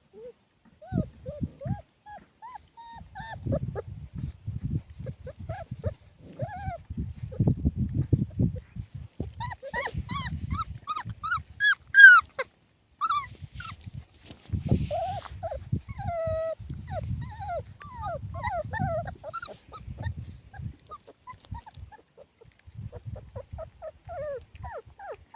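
Puppies whimpering and squealing in many short, high-pitched cries over low rustling noise. The sharpest, loudest squeal comes about halfway through.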